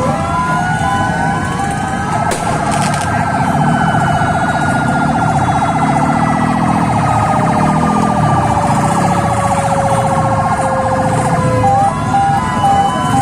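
Several ambulance sirens sounding at once. A fast warbling siren dominates most of the time, a two-tone hi-lo siren alternates at the start and again near the end, and slower wails glide up and down in pitch beneath them.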